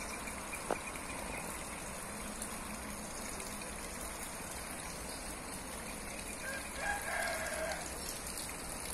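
A rooster crowing once, a short call a little over a second long about three-quarters of the way through, over a steady background hiss.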